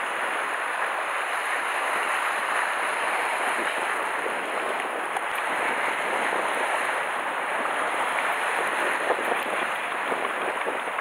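Sea swell washing and breaking against the rocks of a shoreline reef: a steady rushing of water.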